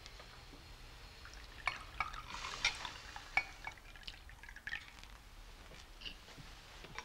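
Wine being poured from a bottle into a glass, with a few light clinks of glass and cutlery on china.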